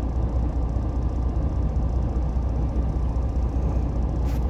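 Heavy truck diesel engine running with a steady low rumble, with a brief click near the end.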